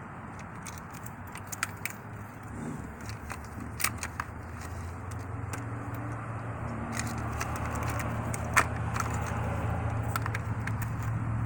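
Scattered light metallic clicks and taps as parts are worked loose from a tilt steering column, over a steady low hum that grows louder about halfway through.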